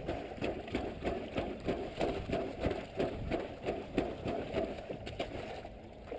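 Yamaha DT 125 R single-cylinder two-stroke enduro wading slowly through floodwater: a low, even pulsing of about four beats a second over a wash of water noise.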